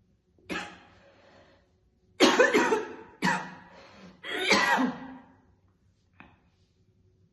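A woman coughing hard, a smoker's cough: a single cough about half a second in, then three heavy coughs in quick succession from about two seconds in.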